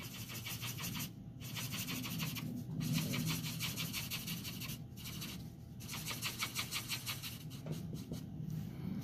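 Copic alcohol marker nib rubbing quickly back and forth across paper in rapid, even strokes, in several runs broken by brief pauses.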